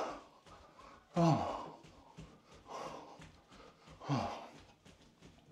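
A man breathing hard from exertion while jogging on the spot: four loud out-breaths about every second and a half, some voiced and falling in pitch like sighs. Faint quick taps of bare feet on a wooden floor run underneath.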